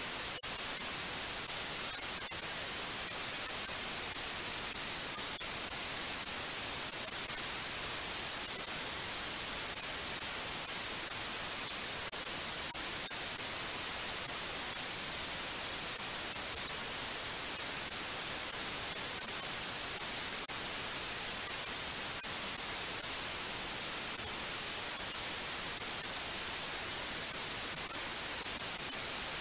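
Steady white noise: an even, unchanging hiss, brightest in the high frequencies.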